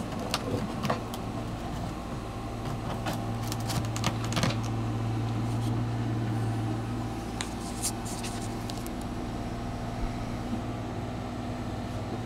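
Short scrapes and knocks of orange plastic sewer-pipe fittings being pushed and worked together by hand over a steady low mechanical hum. The hum grows a little louder in the middle.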